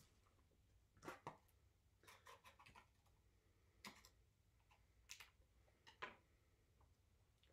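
Faint, scattered clicks and rustles of a paper fast-food drink cup, its plastic lid and straw being handled.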